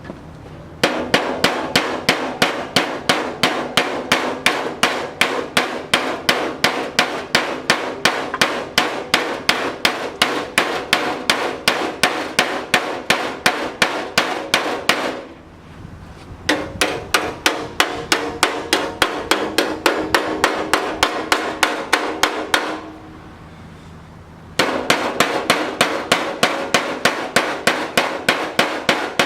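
Hammer tapping automotive sheet steel with quick, even, light blows, about four a second, each with a metallic ring. The blows come in three long runs with short pauses between, stretching and shaping the panel to a contour.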